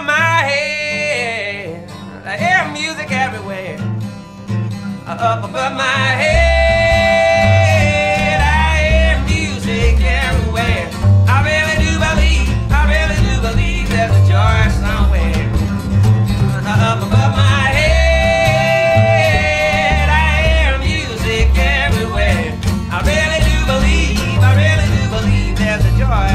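Background music: an acoustic, country-style song with guitar and a singing voice, with a strong bass line coming in about six seconds in.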